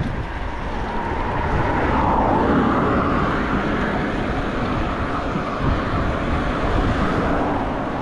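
Wind rumbling on the microphone of a moving bicycle, with traffic on the road. A car passes about two to three seconds in, its tyre and engine noise rising and then falling away.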